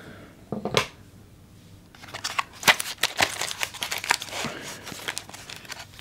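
Plastic packaging crinkling and rustling as boxed parts are handled, after a single light knock under a second in.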